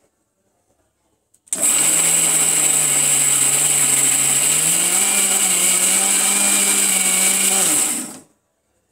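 Electric mixer grinder with a stainless steel jar grinding coconut and dried red chillies into masala. The motor starts about a second and a half in, runs loud and steady with its hum rising slightly in pitch midway, then winds down and stops shortly before the end.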